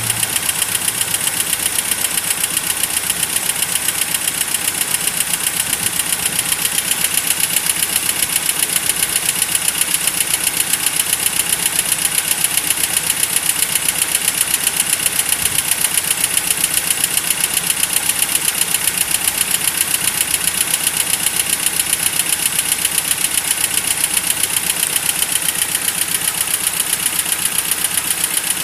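Land Rover Series III engine idling steadily with an even, rapid ticking, run while trapped air is burped out of its cooling system.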